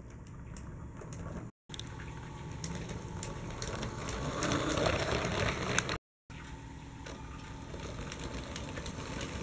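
Motorised Lego City passenger trains running on plastic Lego track: a steady motor whirr and wheel noise that grows loudest as the train passes close, about halfway through. The sound drops out completely twice for a moment.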